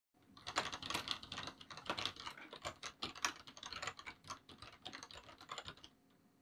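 Fast typing on a computer keyboard: a dense, uneven run of key clicks that stops about six seconds in.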